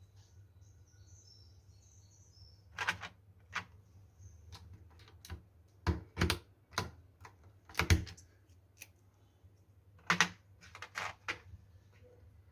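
Cosmic Byte CB-GK-23 Artemis mechanical keyboard, foam-modded and fitted with PBT keycaps, with keys pressed one at a time: about a dozen separate clacks at uneven spacing, starting about three seconds in. A few in the middle are louder and deeper.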